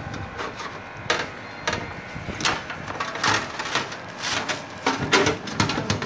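Irregular clicks, knocks and short scrapes of metal being handled as a blower fan motor and its sheet-metal housing are worked on with hand tools. There are several sharp strokes, the loudest about five seconds in.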